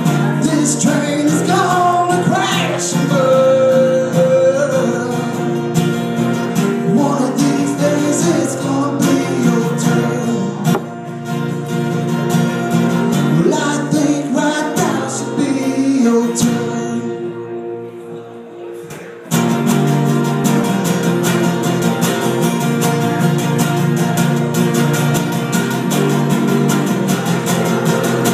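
Live band playing a song with guitar and a singing voice; the singing drops out after about sixteen seconds, the music thins out briefly, then the full band comes back in abruptly.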